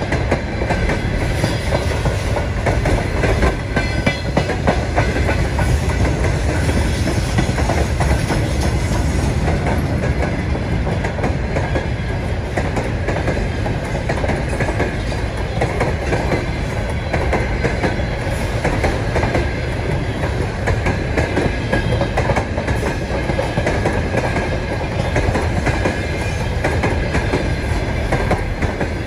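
Freight train of container flatcars rolling past close by: a loud, steady rumble of steel wheels on the rails, with a rapid run of clicks as the wheels cross the rail joints.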